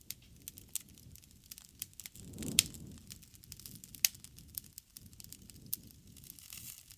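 Wood fire crackling, with many small pops and sharp snaps over the low rumble of burning. The rumble swells and the loudest snap comes about two and a half seconds in; another strong snap comes about four seconds in.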